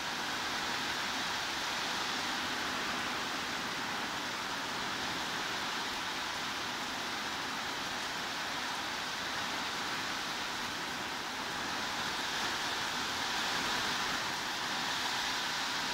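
Steady heavy rain as a continuous, even hiss.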